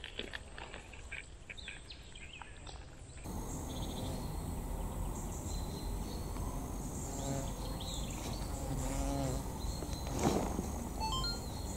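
Outdoor insect ambience, quiet for the first three seconds, then louder and fuller, with a few short chirping calls and a single thump near the end.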